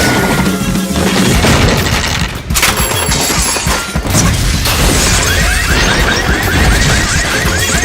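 Cartoon slapstick sound effects over background music: a noisy clatter of crashing and banging, with sharp impacts about two and a half and four seconds in. Then comes a fast run of short rising squeaks, about five a second, through the last few seconds.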